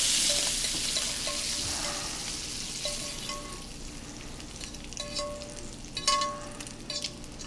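Bacon sizzling in a pan held off the heat, the sizzle dying away over the first few seconds. A metal fork clinks and scrapes against the pan several times, each with a short metallic ring.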